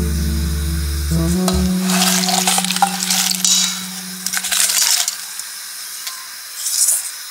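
Prawn and langoustine shells and heads dropped by hand into a steel stockpot, making a crackly rustle in bursts from about 2 to 5 seconds in, with a short rustle again near the end. Background music with a held note plays under it and stops shortly before the end.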